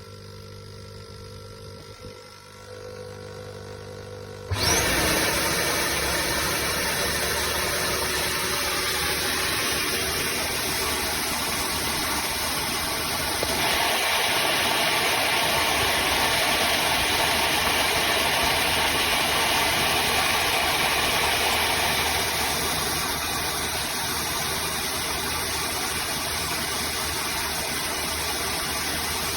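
Bissell CrossWave HydroSteam wet-dry vacuum running its self-cleaning cycle in its base: the suction motor and brush roll start abruptly about four seconds in and then run steadily. The sound shifts twice partway through.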